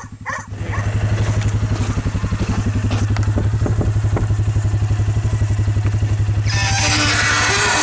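Small vehicle engine pulling away: it picks up about half a second in, then runs steadily with an even pulsing hum. A loud hiss comes in for the last second or so.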